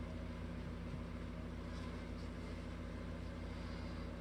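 Steady low background hum, unchanging throughout.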